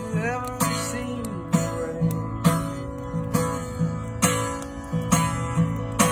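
Acoustic guitar strummed in a steady rhythm, with a stronger stroke about once a second and lighter ones between, and a brief sliding note near the start.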